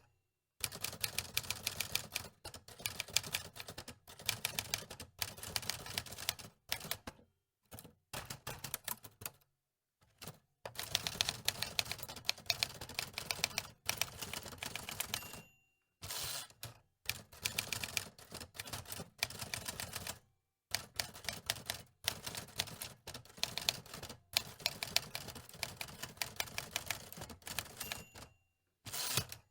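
Manual typewriter keys clacking in fast runs of keystrokes, each run a few seconds long and broken by short pauses.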